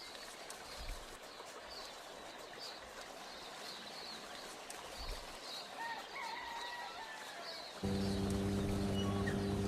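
Birds chirping, with short high calls repeated every second or so over a faint outdoor background. Near the end a steady low hum starts abruptly and holds.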